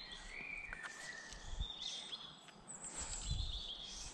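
Songbirds calling in several short, clear whistled notes at different pitches, one longer slightly falling note first, over a steady background hiss, with a couple of low thumps.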